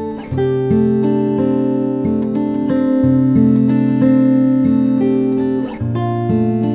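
Background music: plucked and strummed acoustic guitar chords at a steady, gentle pace.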